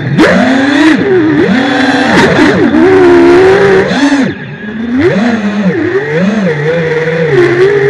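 Multirotor FPV drone's electric motors and propellers whining loudly as heard on its onboard camera, the pitch swinging up and down again and again as the throttle is worked while it pulls out of a dive near the ground. The whine drops briefly about four seconds in, then climbs again.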